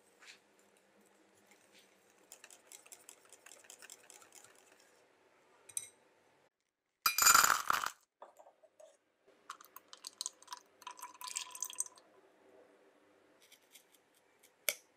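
Wire whisk clicking rapidly against a glass bowl as batter is mixed. About seven seconds in, the loudest sound: white chocolate buttons clattering into a ceramic saucepan. More clinks follow, then a single sharp tap of a knife on a wooden cutting board near the end.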